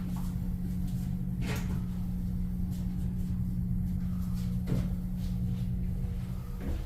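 Elevator car descending: a steady low hum of the ride, with a few short knocks or clicks from the car, one about a second and a half in and another near five seconds.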